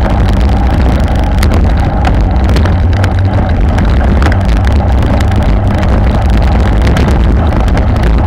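Wind buffeting the microphone of a bike-mounted action camera at about 40 km/h, over a steady rumble of road-bike tyres on brick paving, with scattered sharp clicks and rattles.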